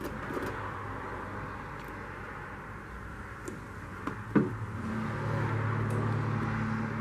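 A vehicle engine running steadily, with a low hum that grows stronger after a single knock about four and a half seconds in.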